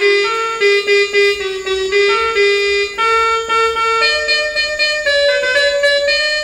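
Instrumental music played on an electronic keyboard: a melody of quick, distinct notes.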